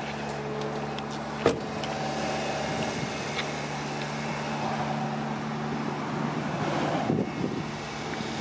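1992 Subaru Sambar kei truck's four-cylinder engine idling steadily on a cold start, at a slightly raised fast idle. A single sharp knock about one and a half seconds in.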